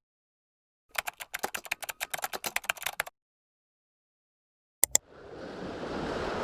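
A quick run of sharp clicks like typing on a keyboard for about two seconds, then two single clicks and a steadily rising swell of noise.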